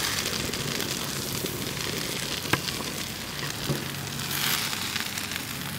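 Sliced mushrooms and onions sizzling in bacon fat in a stainless steel pan over a gas side burner. There are a couple of light knocks as the mushrooms are scraped in off a wooden cutting board, and a brief swell in the sizzle a little after the middle.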